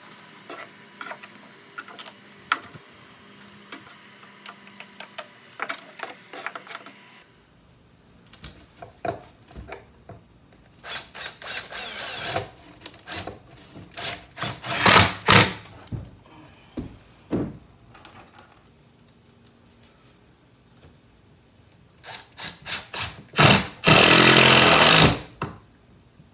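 Cordless drill driving screws with washers through a wooden board into a boat stringer, in several short whirring bursts, the longest and loudest near the end. Before the drilling starts, light scraping and small clicks.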